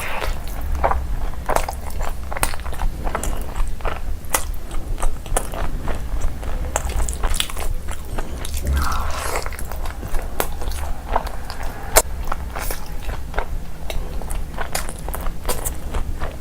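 Close-miked eating: a person biting and chewing food, with many irregular wet clicks and crunches.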